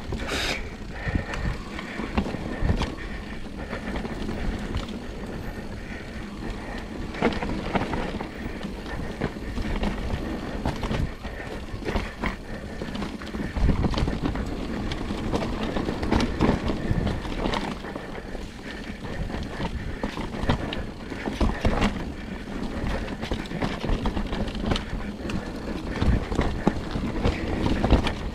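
Mountain bike riding downhill on a muddy, slick trail: a continuous rumble of tyres on dirt, with frequent knocks and rattles from the bike as it goes over bumps.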